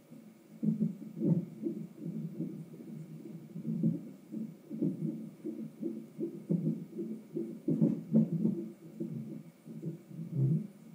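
Fetal heart monitor's Doppler speaker giving out an unborn baby's heartbeat at 33 weeks: fast, muffled whooshing pulses. Louder thumps come in among the beats now and then, which is how the baby's hiccups come through the monitor.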